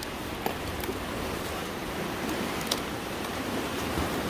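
Steady rushing noise of sea surf and wind, with a few faint ticks.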